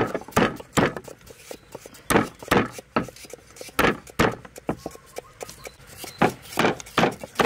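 Garlic cloves being crushed on a wooden chopping board with a stone pestle: about a dozen sharp knocks of stone on wood, coming in quick runs of two or three.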